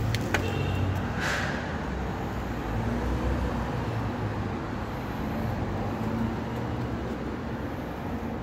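Steady low rumble of road traffic, with a few short clicks and a brief rustle in the first second or so.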